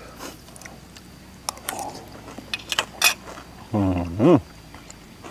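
A person chewing a mouthful of salad, with scattered small wet clicks, then a short 'mmm' of approval about four seconds in, its pitch rising and then falling.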